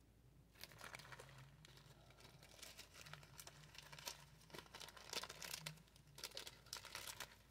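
Faint crinkling and rustling of small product packaging being handled, in short scattered bursts.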